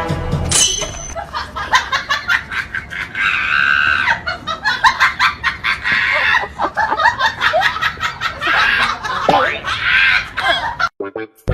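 People laughing and shrieking over a rapid run of clicks and knocks, cutting off abruptly near the end.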